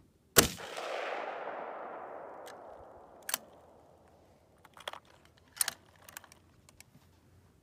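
A single shot from a scoped Ruger M77 bolt-action rifle: a sharp crack about half a second in, then an echo that fades away over about three seconds. Several short metallic clicks follow as the bolt is worked.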